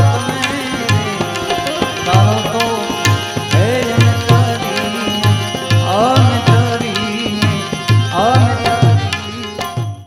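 Indian devotional music: a harmonium over a steady rhythm of deep hand-drum strokes, two or three a second. It cuts off suddenly at the end.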